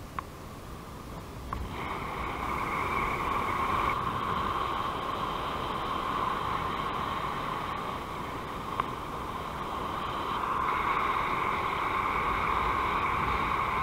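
Airflow rushing over the camera's microphone in paraglider flight: a steady wind rush that swells about two seconds in and again near the end, with a few faint clicks.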